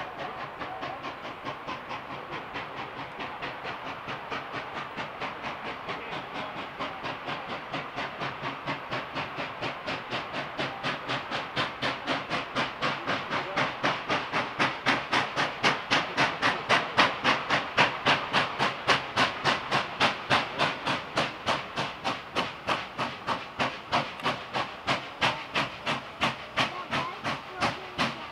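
Nickel Plate Road 765, a 2-8-4 Berkshire steam locomotive, exhausting in a fast, even beat of chuffs with steam hiss as it works toward the crossing. The chuffs grow louder until about two thirds of the way through, then ease slightly.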